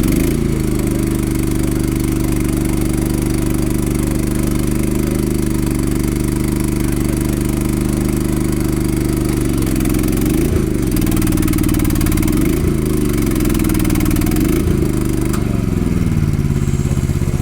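Engine running steadily, its speed briefly dipping and picking up again three times in the second half.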